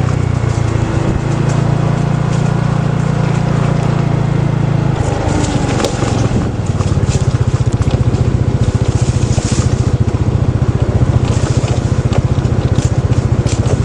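Motorbike engine running while riding. About six seconds in, the note changes to a rapid, even putter, with scattered clicks and crackles over it.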